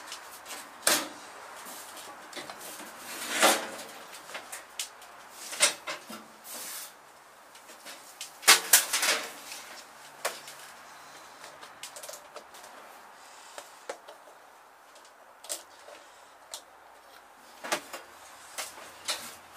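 Scattered clicks, knocks and clattering of hands-on work around a garden tractor, with a louder cluster of rattles about three and a half seconds in and again around eight to nine seconds in; the engine is not yet running.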